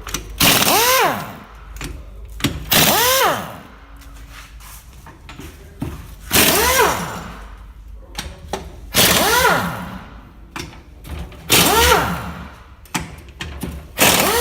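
Pneumatic impact wrench fired in about five short bursts, each a rattle with a whine that rises and then falls, as it undoes the transmission case bolts.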